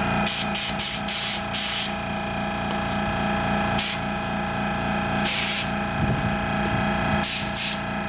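Goodyear 2-gallon air compressor's motor running with a steady hum, while air hisses in repeated short bursts of under half a second from the inflator hose and tire chuck, several in the first two seconds and then a few spaced out later.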